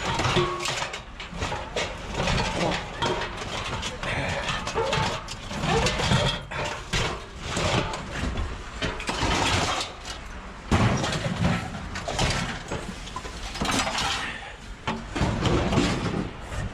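Pieces of scrap metal clanking, rattling and scraping as they are handled, pulled loose and tossed aside, with irregular sharp knocks throughout.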